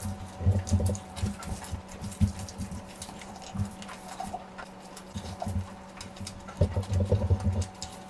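Close-miked eating: irregular wet chewing and mouth smacks that come in clusters, over a faint steady hum.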